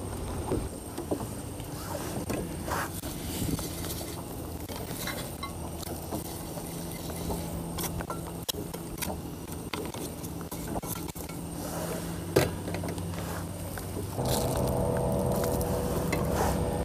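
Cookware handled on a small boat: light clinks and knocks of a frying pan, spatula and pot around a portable butane gas stove, over a steady low hum. About fourteen seconds in, a louder steady hum sets in.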